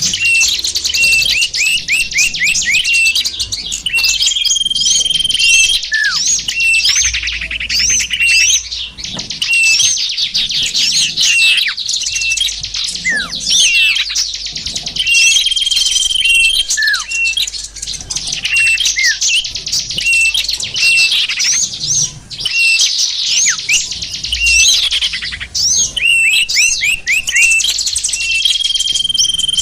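Bird-lure recording of small birds chirping and twittering in a dense, busy chorus of high notes and quick trills. Short downward-slurring whistles and a held steady whistle note recur every several seconds.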